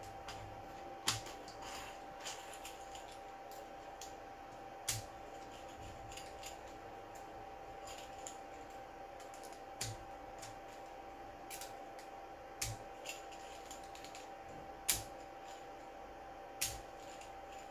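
Irregular sharp plastic clicks and snaps as a small hand tool picks and pries at a 3D-printed plastic ball bearing, about a dozen over the stretch, the loudest near the end. A faint steady hum runs underneath.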